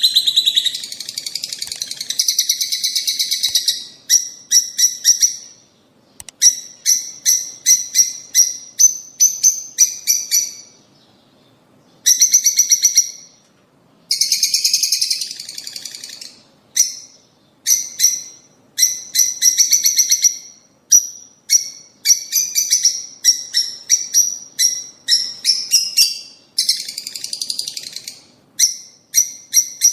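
Lovebirds chattering in shrill, rapid strings of chirps, each run lasting a second or so, broken by short pauses.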